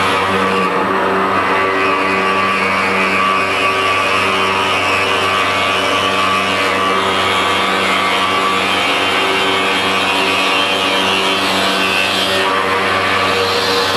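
CNC stone-cutting machine milling andesite or marble: a steady machine hum with a rougher cutting noise over it that changes about a second in and again near the end.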